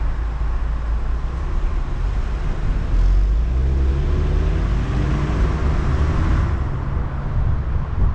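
Car engine and road noise as the car pulls away from a standstill: a steady low rumble that grows louder about three seconds in, with the engine note rising as it accelerates.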